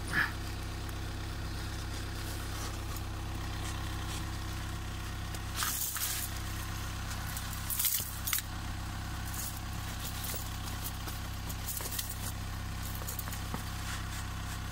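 Car engine idling steadily, with a few brief metallic rattles and clinks of the Thule König XG-12 Pro steel snow chain being handled, the loudest about halfway through.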